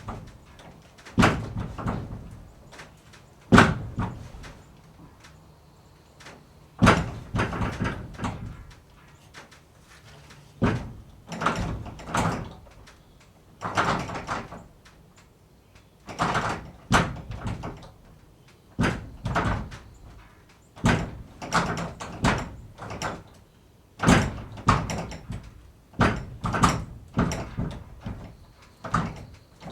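Wooden barn door being shaken, opened and shut again and again: bursts of rattling and knocking against its frame and latch, with some heavy bangs as it closes.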